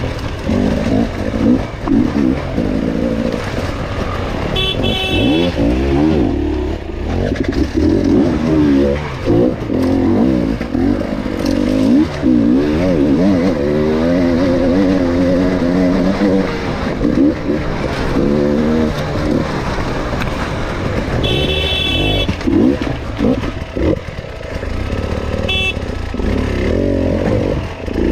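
Enduro dirt bike engine revving up and down continuously as it is ridden over a trail. Three short high-pitched tones cut in briefly: about five seconds in, near twenty-two seconds and near twenty-six seconds.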